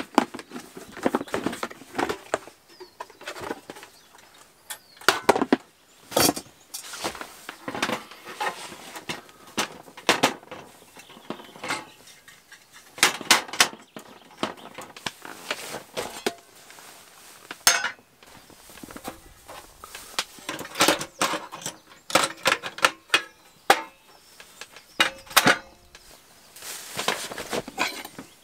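Clicks, knocks and rattles of a hard carry case being opened and a portable gas camp stove being lifted out and set down on a folding table. Near the end, a knife cutting on a wooden board.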